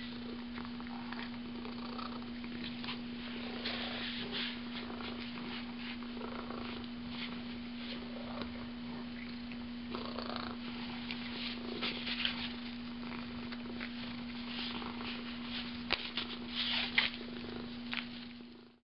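Domestic cat purring while it chews and paws at a small fabric toy, with scattered light scratching and crinkling ticks, busier about ten seconds in and again near the end. A steady low hum runs underneath throughout.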